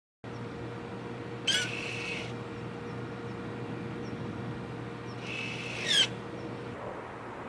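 Honda Vezel Hybrid's electronic parking brake actuator working twice. Each time it gives a short, loud, high-pitched squeal that slides in pitch, the 'kyuu' noise these Honda electric parking brakes are known for. A steady low hum runs underneath.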